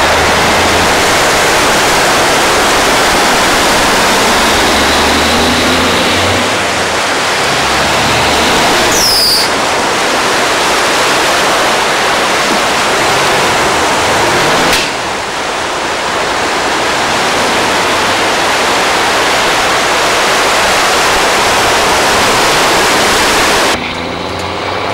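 Floodwater splashing and rushing as vehicles drive through it: a loud, steady wash of noise. A heavy truck engine's low rumble runs under it for the first six seconds or so.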